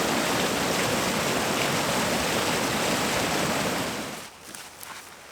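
Spring meltwater stream rushing, a steady loud rush of water that cuts off abruptly about four seconds in. A quieter stretch with a few faint clicks follows.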